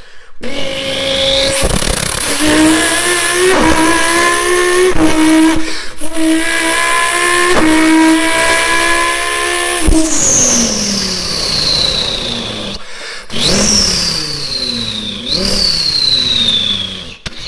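A person imitating a twin-turbocharged Dodge Viper GTS with their voice: an engine note that climbs and drops back several times like gear changes. This is followed by three high, falling whistles like turbo spool and blow-off.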